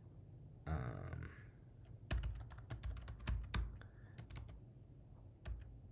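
Typing on a computer keyboard: irregular keystroke clicks, thickest from about two seconds in, after a short wordless murmur of voice about a second in.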